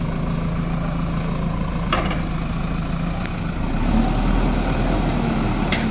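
JCB backhoe loader's diesel engine running steadily, then deepening and growing louder about two-thirds of the way in. Two short sharp knocks, one about two seconds in and one near the end.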